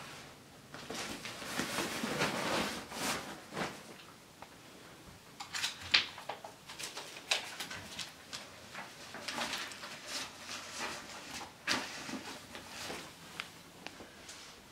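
Rustling and irregular light knocks and clicks of things being handled: a reusable shopping bag being unpacked and sheets of paper being handled, with a sharp knock about six seconds in.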